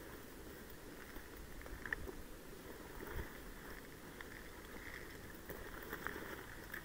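Wind rumbling on the microphone outdoors, rising and falling, with a few faint clicks and rustles.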